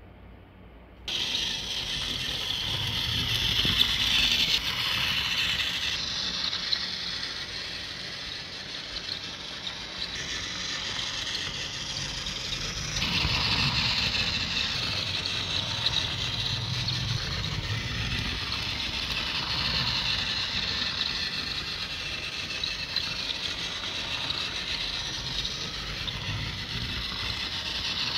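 Battery-powered Mattel Trackmaster toy engine switched on about a second in, its small electric motor and plastic gears then running with a steady whir as it drives along the plastic track.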